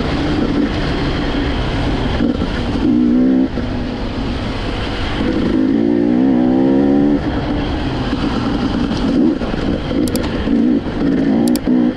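KTM EXC 300 two-stroke enduro engine revving, with two longer rising revs about three and six seconds in, then a run of short throttle blips.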